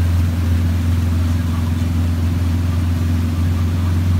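Vehicle engine running steadily with a low drone while driving through floodwater covering a road, with water churning and washing alongside.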